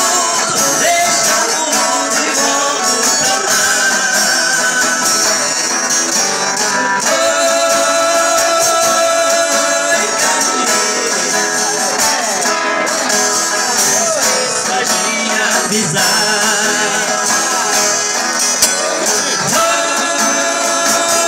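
Live Brazilian sertanejo (caipira) song: viola caipira and acoustic guitar strummed together, with male voices singing over them.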